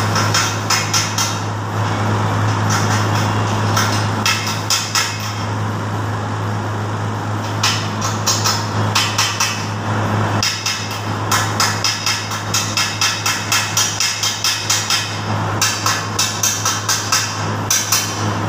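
Stick arc welding on a steel cart frame: the arc crackles and sputters in quick pulses several times a second, in runs with short pauses, over a steady low hum.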